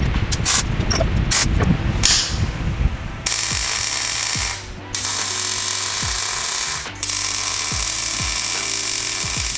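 Rapid metal rattling and knocking for about three seconds. Then a welder's steady crackling hiss in three runs with short breaks between them, typical of tack-welding a steel roll-cage tube in place.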